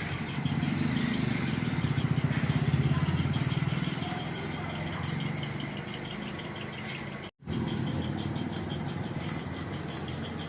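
A motor engine running with a low, rapidly pulsing rumble, louder in the first few seconds. The sound cuts out completely for a moment about seven seconds in.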